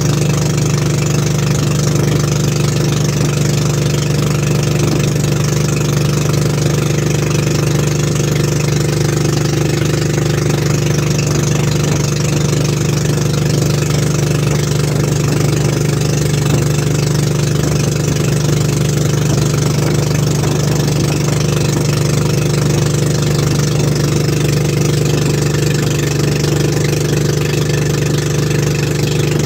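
Outrigger motorboat (bangka) engine running steadily under way, a loud constant drone that holds one speed throughout.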